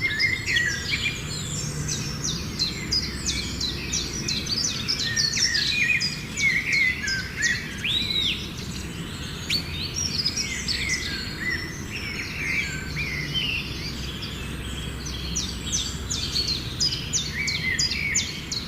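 Birds chirping and calling, a busy chorus of short high chirps, trills and whistles, over a steady low background rumble.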